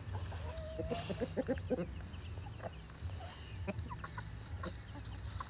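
A flock of chickens clucking, with a quick run of clucks and one longer call in the first two seconds, then scattered single clucks.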